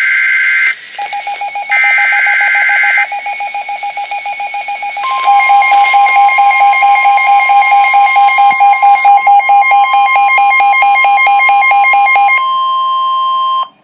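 NOAA Weather Radio Emergency Alert System broadcast: buzzy digital SAME header data bursts, then the steady 1050 Hz weather-radio warning alarm tone from about five seconds in, which cuts off just before the end. Over these, a receiver's electronic alarm beeps rapidly, joined by a faster alternating beep pattern, and the beeping stops about a second before the tone ends.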